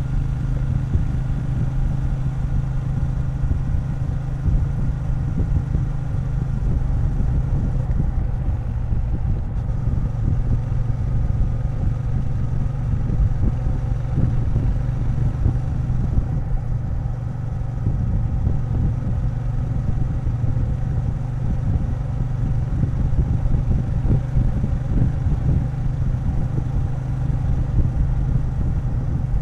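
Triumph Bonneville T120 parallel-twin engine running steadily while the motorcycle is ridden at a constant speed.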